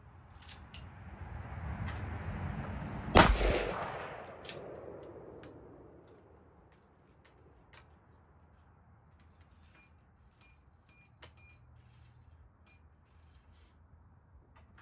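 A single shot from an AR-pattern rifle chambered in 300 Blackout about three seconds in, its report dying away over a couple of seconds. A rushing noise swells just before the shot, and a few faint clicks follow.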